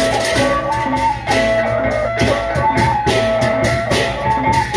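A Lombok gendang beleq gamelan ensemble playing. Large barrel drums and rapid cymbal strokes drive the music under a pitched melody line that moves in short held notes.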